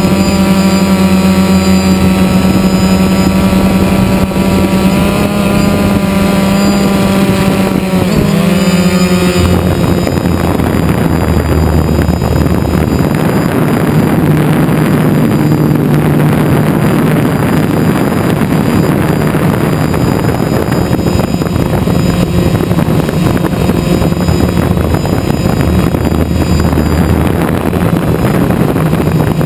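Quadcopter's electric motors and propellers humming right at the onboard camera's microphone, a steady pitched whine. About eight seconds in, the pitch dips and wavers. After that the hum turns rougher and noisier.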